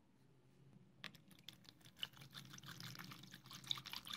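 Liquid poured from a plastic bottle into a plastic tub over a rusty claw-hammer head, splashing. It starts about a second in and grows denser towards the end.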